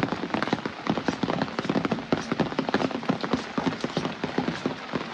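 Rain falling, with many irregular drops tapping and dripping onto hard surfaces in a dense patter.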